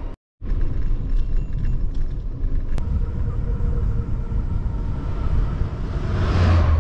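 Steady wind rumble on the microphone of a camera riding along on a mountain bike, with a rushing hiss swelling up near the end. The sound cuts out completely for a moment just after the start.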